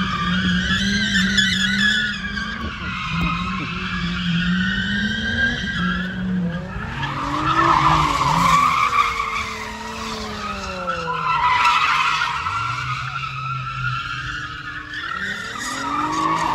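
Car drifting: the tires screech continuously while the engine is held at high revs, its pitch sweeping up and down as the driver works the throttle. The screech peaks about halfway through and again two-thirds of the way through.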